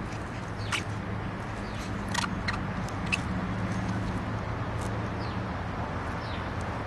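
Outdoor backyard ambience: a steady low hum with scattered short, high bird chirps.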